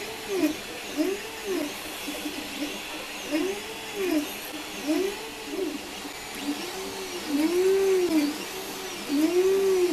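Creality CR-10 3D printer's stepper motors whining as the print head traces circles, the pitch rising and falling in repeated arcs about once a second, over a steady background hiss.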